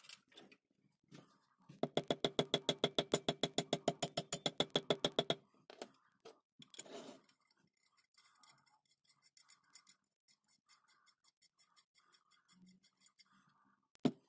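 Metal clicking and scraping from a cast corner clamp as its threaded screw is turned into the body and its parts are handled. A few seconds of rapid, even clicking at about nine a second comes first, then softer ticking and scraping, and one sharp knock near the end.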